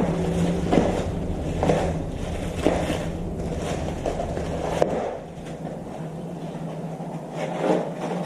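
Light knocks and scrapes of hands working the fuel injectors and fuel rail, over a steady low hum that fades about five seconds in.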